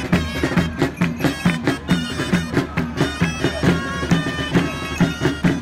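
Catalan festival street music: shrill double-reed shawms (gralles) playing a dance tune over a steady drum beat of about three strokes a second.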